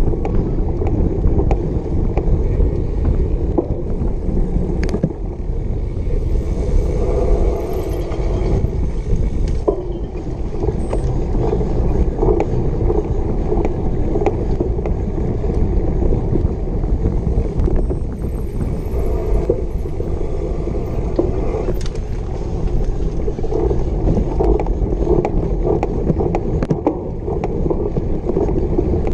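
Cyclocross bike racing over bumpy grass: a steady rumble of knobby tyres and wind on the microphone, with frequent small rattles and clicks from the bike as it bounces over the turf.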